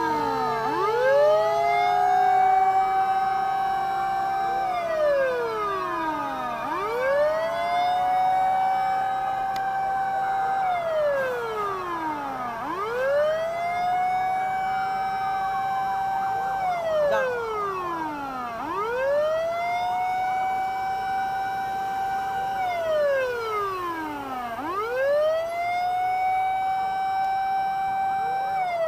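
Fire truck siren wailing in slow cycles of about six seconds each: a quick rise, a held top note, then a slow fall. Other sirens overlap near the start, and a low steady hum runs underneath.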